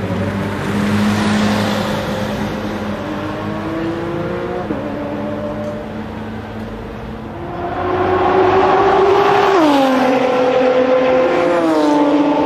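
Nissan R35 GT-R's twin-turbo V6 through an HKS aftermarket exhaust, pulling away and accelerating: the engine note climbs and drops at an upshift about five seconds in. It then gets much louder and climbs again, with two more quick upshifts in the last few seconds.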